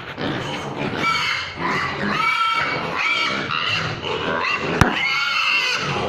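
Pigs squealing and grunting in a run of repeated calls, with a single sharp click about five seconds in.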